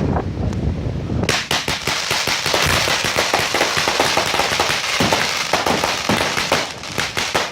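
Fireworks crackling: about a second in, a dense, rapid stream of sharp pops and crackles starts and keeps going.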